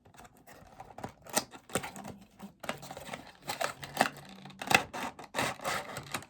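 Cardboard bobblehead box being handled and opened by hand: irregular taps, clicks and scrapes of cardboard, with longer rustling near the end.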